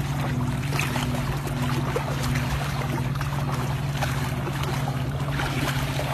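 Shallow seawater sloshing around wading legs, over a steady low drone that pulses faintly and does not change.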